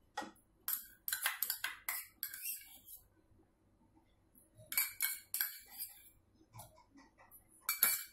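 A metal spoon scraping and clinking against a stainless steel bowl as thick cream (malai) is scooped out, in irregular bursts: a run of clinks over the first few seconds, another around five seconds in, and a short one near the end.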